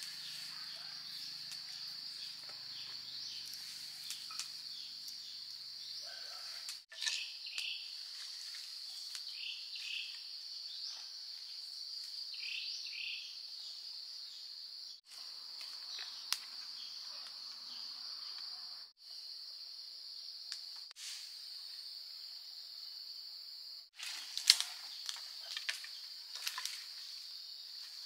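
Forest insects droning on one steady high note, broken off briefly several times, with scattered short chirps. Near the end come several sharp knocks, the loudest sounds here.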